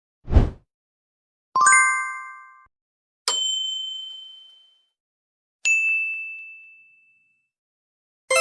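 Editing sound effects played one after another: a short noisy hit, then three separate bell-like dings about two seconds apart, each at a different pitch and fading out over about a second. A fuller, many-toned chime strikes right at the end.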